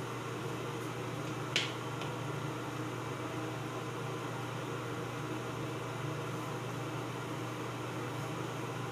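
Steady ventilation hum, with one sharp click about a second and a half in and a fainter click half a second later.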